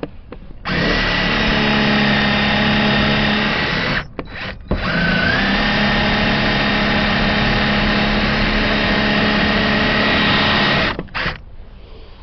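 Power drill boring into a Kwikset deadbolt lock, run in two long steady stretches of about three and six seconds with short trigger blips between and after.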